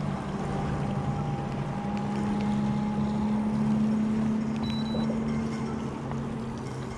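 Electric bow-mount trolling motor running, a steady hum that strengthens about two seconds in, with a faint thin whine in the first half, as it moves the boat into position.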